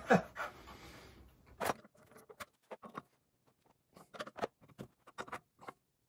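Scattered light clicks and knocks of hands working copper water pipes and brass compression fittings, a dozen or so short taps spread irregularly after the first second or so.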